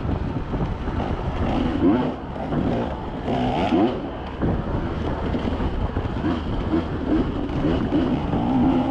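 Off-road vehicle engine running on a trail, its pitch wavering up and down as the throttle is worked, over rumbling road and wind noise.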